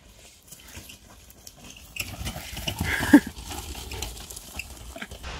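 Faint crunching of gravel under wheelchair wheels on a dirt path. From about two seconds in, louder low wind rumble on the microphone and scuffing, with a brief voice sound about three seconds in.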